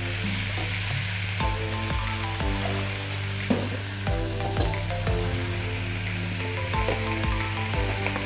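Chicken pieces and spice paste sizzling steadily as they fry in a wok, over background music with a regular beat.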